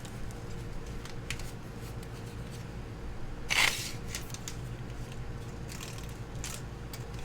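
Small handling noises of tools and parts being moved, a few light clicks and scrapes with one louder rasp about three and a half seconds in, over a steady low hum.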